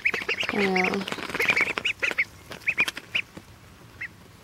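Ducklings peeping, a rapid string of short high calls that thins out after about two seconds, with a brief lower call about half a second in. Light clicks run through the first couple of seconds as the ducklings peck peas from a plastic plate.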